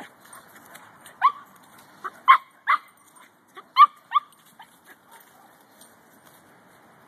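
Small dogs yipping and barking in short high calls as they chase each other in play, about eight quick yips in the first half, then they fall quiet.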